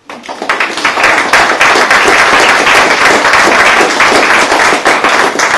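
Audience applauding: many people clapping together, starting abruptly and holding steady throughout.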